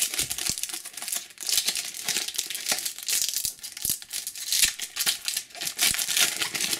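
Foil booster pack of Panini Adrenalyn XL trading cards crinkling and tearing as it is ripped open by hand, an irregular crackle throughout.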